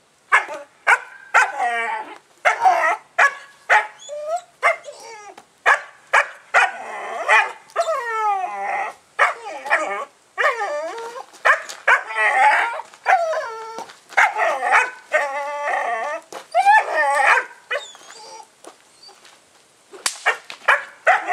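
A 15-week-old puppy barking and yipping over and over in quick high-pitched runs, some calls drawn out into falling whines, with a quieter spell near the end.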